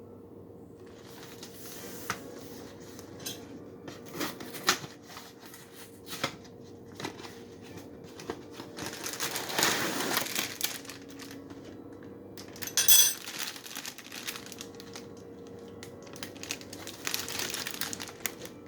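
Plastic cereal bag crinkling and rustling as it is handled and opened, with scattered taps; a longer stretch of rustling around the middle and a sharp, loud rustle about two-thirds of the way through.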